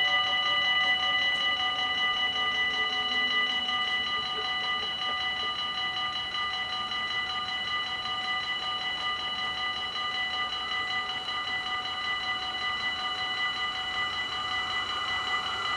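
Dutch level-crossing warning bells ringing steadily in a fast, even rhythm while the crossing is closed. Near the end, the noise of an approaching train begins to rise.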